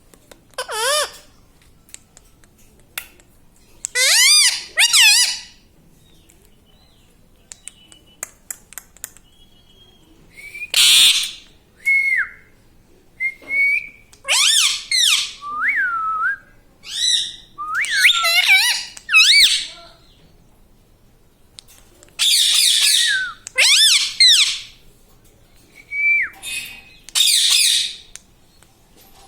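Pet parrot calling in a series of loud, harsh squawks with a wavering pitch, coming in bursts, with a few short whistled notes between them.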